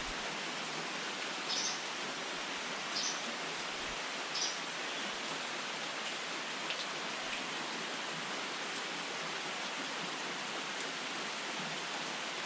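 Steady rain falling. Three brief high-pitched sounds stand out over it in the first few seconds.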